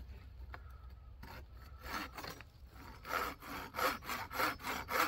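The saw-toothed spine of a Fiskars machete sawing back and forth through a thin dry stick. A few light strokes start it, then from about halfway in the strokes are steady and louder, about two a second.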